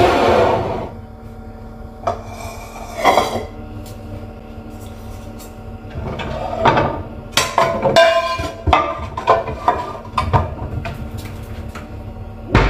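Pots and frying pans clattering and scraping as they are set down and slid onto a kitchen cupboard shelf. A single sharp knock near the end, as the cupboard door shuts.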